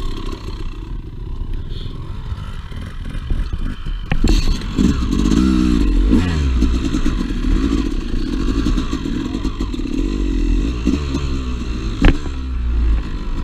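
Two-stroke dirt bike engine revving up and down while riding over rough trail, with sharp knocks of the bike clattering over terrain about four seconds in and again near the end. Wind rumbling on the microphone underneath.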